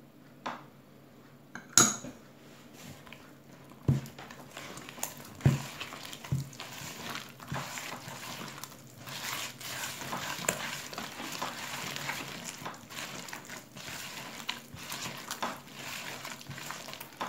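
A few sharp knocks against a plastic mixing bowl as an egg is scraped in from a spatula, the loudest about two seconds in. Then a hand steadily works soft butter, icing sugar and egg together, the mixture rubbing and smacking against the sides of the plastic bowl as the butter begins to loosen with the egg.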